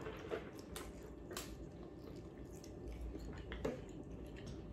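Faint chewing and biting on a sauced chicken wing, with a few soft wet clicks and smacks from the mouth.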